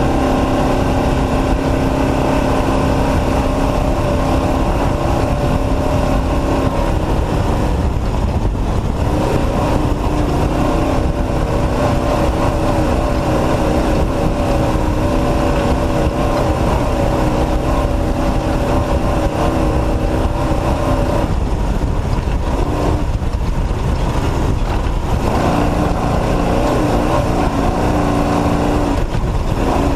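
Off-road race truck engine running hard under a loud, constant rumble. Its note holds steady, then drops away briefly three times (about a quarter of the way in, between two-thirds and five-sixths of the way through, and near the end) before picking up again, as the throttle comes off and back on.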